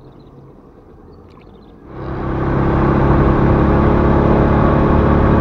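A Honda motorcycle running steadily at road speed, starting suddenly about two seconds in, with loud wind rush over the microphone.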